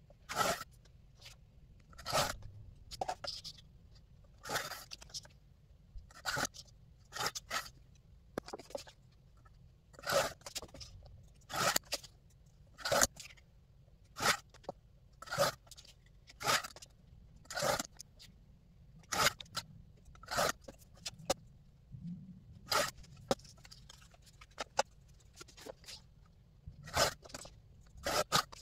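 Rotary paper trimmer cutting printed card: the cutting head slides along its rail and slices the sheet in short scraping strokes, about one a second, repeated many times.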